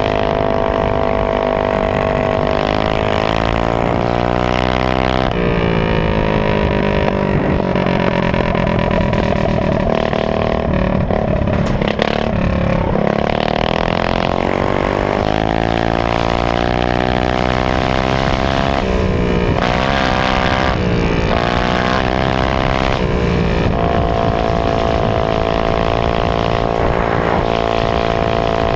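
Honda GX160 single-cylinder engine on a minibike running hard at speed. Its pitch dips and climbs again several times, steadiest near the start and the end.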